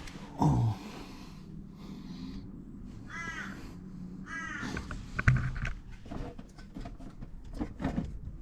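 A crow cawing twice, each call a harsh arched note, over a low steady hum.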